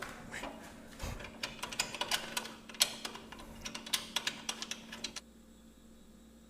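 A quick, irregular run of sharp clicks and taps that stops suddenly a little after five seconds in, leaving only a faint steady hum.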